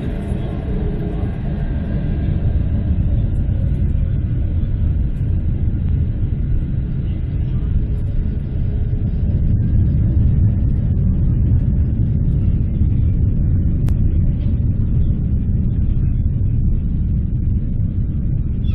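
Boeing 747's four jet engines giving off a loud, steady low rumble, which swells a little over the first few seconds while a fainter whine fades away.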